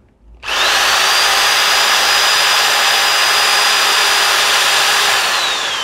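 DCK KQU160 electric paddle mixer switched on and running free without load, a loud steady motor-and-gearbox whine with a thin high tone. Near the end the trigger is released and it winds down, the whine falling in pitch.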